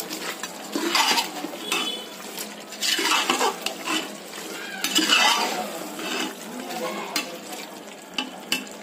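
A ladle stirring a thick chicken masala around a metal pot, scraping through it in sweeps about every two seconds, with a few sharp taps against the pot near the end.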